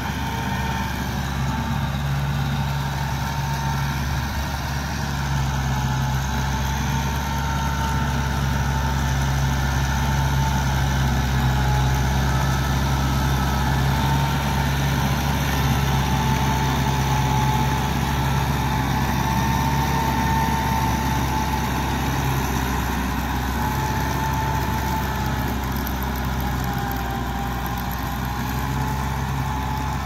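Kubota M6040SU tractor's diesel engine running steadily under load while pulling a rotary tiller through wet rice-field soil, with a thin tone that wavers slightly in pitch above the engine note. It grows a little louder in the middle as the tractor passes close.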